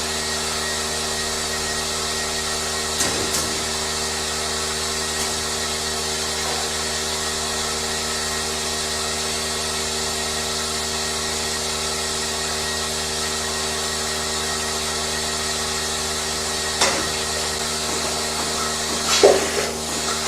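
A motor-driven machine running steadily with an even, multi-toned hum, with a few short knocks about three seconds in and again near the end.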